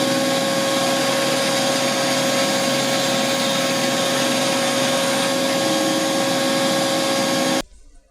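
Craftsman 10-inch band saw running steadily on its freshly fitted urethane wheel tires, a steady whine over an even hiss, cutting off suddenly near the end.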